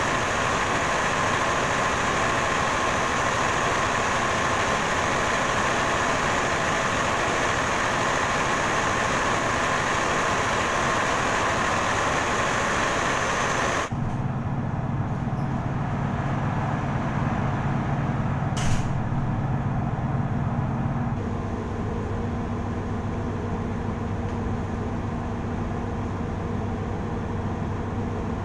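Ship's diesel generator engines running loud and steady in the engine room. About halfway through this cuts to the quieter, steady low hum of the engine control room, with one short click.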